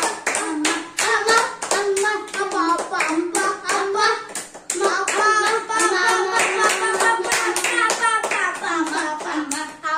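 Hands clapping in a steady rhythm, about three claps a second, with voices singing or chanting along over the claps.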